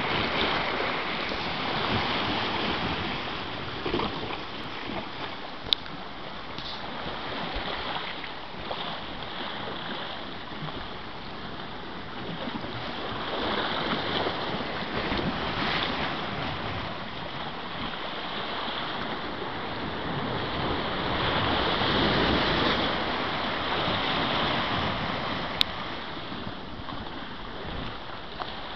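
Sea surf washing and swirling around rocks, a continuous rushing that swells and ebbs, loudest in the last third. Two short sharp clicks, one about six seconds in and one near the end.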